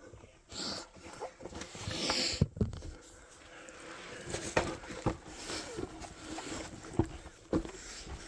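Scattered knocks and rustling of someone moving and scrambling over loose ground, with a louder burst of rustling about two seconds in.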